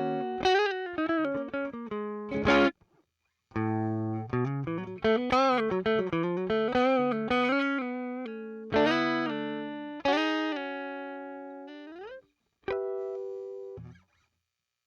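Electric guitar played through the Zoom G2 FOUR multi-effects unit's Fender Deluxe Reverb amp simulation: chords and single-note phrases with vibrato and a string bend. The last note cuts off about 14 seconds in.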